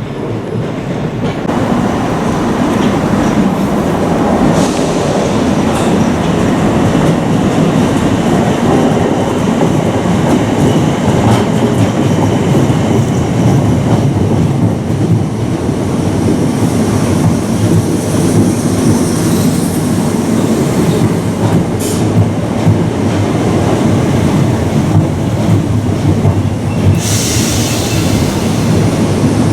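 A Southern passenger train running along the platform, wheels clattering over the rail joints with some wheel squeal, loud and continuous. A short high hiss near the end.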